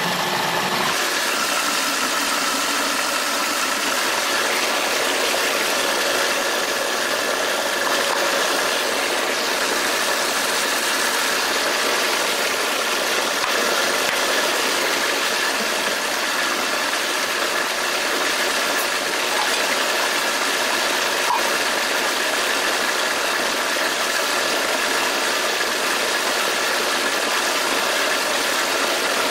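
Food processor motor running steadily, puréeing cooked cauliflower into a thick Alfredo sauce: a continuous whir with a faint steady whine.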